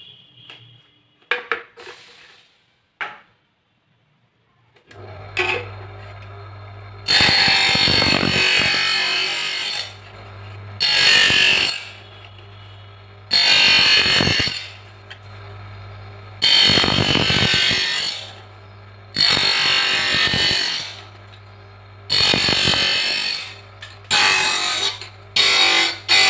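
A small optical lens cutting machine starts up about five seconds in after a few handling clicks, its motor humming steadily. A plastic bifocal lens is pressed against the spinning cutting wheel again and again, giving about eight loud grinding bursts of one to three seconds as its edge is cut to shape.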